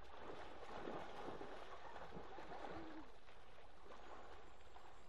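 Water splashing as a dog swims and lunges through shallow lake water, fading after about three seconds.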